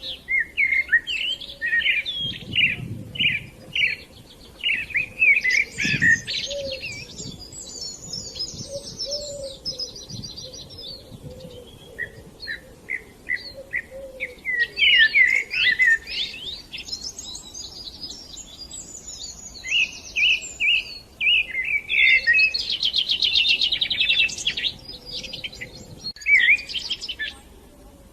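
Small birds chirping and singing, several calls overlapping, with a few fast trills in among the short chirps.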